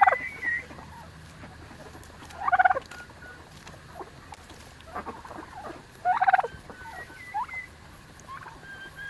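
Self Blue turkey tom gobbling three times, a few seconds apart, each gobble a short rapid rattle. Faint short high calls from other birds come between the gobbles.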